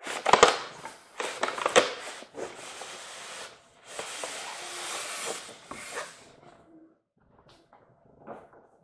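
Cardboard box and packing being handled as a toy train locomotive is unpacked: a few sharp knocks and scrapes in the first two seconds, then two stretches of rustling, with fainter handling noises near the end.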